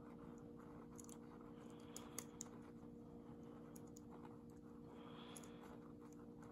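Faint, scattered clicks of a lock pick and tension wrench working the pins of a 5-pin Lockwood padlock, over a steady low hum.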